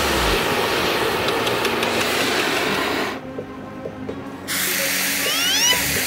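Gas torch flame blowing with a steady hiss. It drops away for about a second and a half midway, then starts again. A few short rising whistling tones sound near the end.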